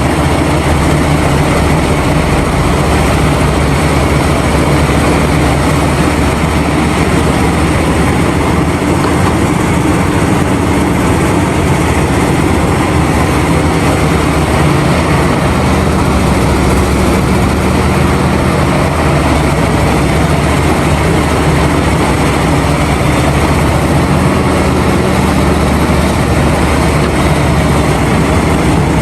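Heavy diesel engines of large mining excavators and haul trucks running steadily: a deep, even engine drone that holds at the same level with no distinct impacts.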